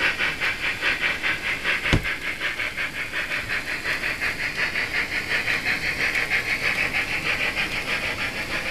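Recorded steam-locomotive chuffing played for an HO-scale Fleischmann steam tank engine model as it pulls its coaches away: a steady rhythm of hissing exhaust beats. A single sharp click sounds about two seconds in.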